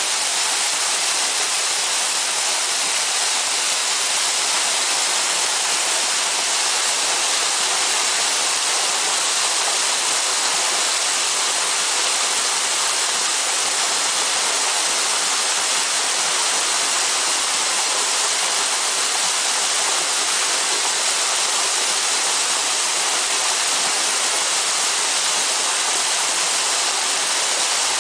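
A stream rushing and splashing over rocks, a steady, loud hiss of running water.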